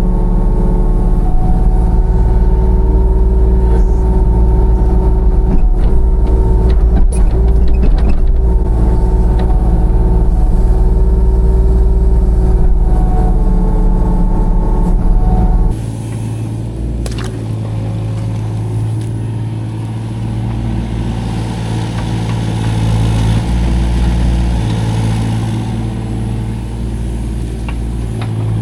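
Small 25-horsepower mini excavator engine running steadily under hydraulic load while digging, with a few sharp knocks. About halfway through, the sound abruptly drops in level and changes character.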